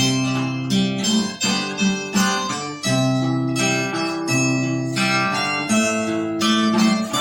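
Acoustic guitar and harp-zither playing instrumental music together: a run of plucked notes over held low notes.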